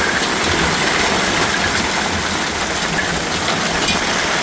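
Heavy hailstorm: a dense, steady roar of hailstones pelting down, with many small hits clattering through it.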